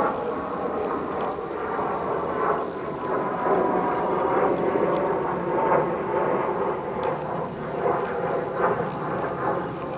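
A steady engine drone with a faint hum in it, swelling and fading a little.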